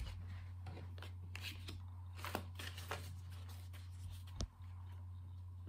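A deck of tarot cards shuffled by hand, soft scattered ticks and brushes of card on card, with one sharper click about four and a half seconds in, over a steady low hum.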